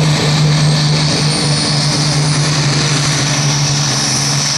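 Tuned diesel engine of a Super Sport class pulling tractor running flat out under load as it drags the weight sled, a steady deep drone with a faint high whistle slowly rising in pitch.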